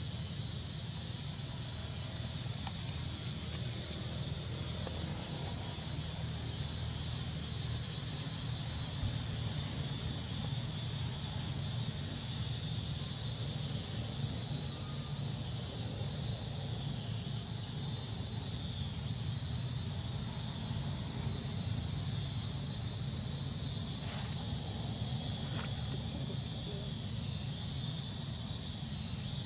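Steady outdoor ambience: a high, continuous insect drone with a low steady rumble beneath it.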